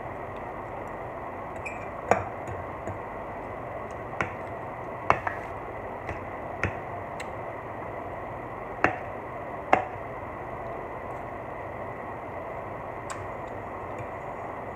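Metal fork clinking against a glass baking dish while eating: about seven sharp clinks at irregular intervals over a steady hiss.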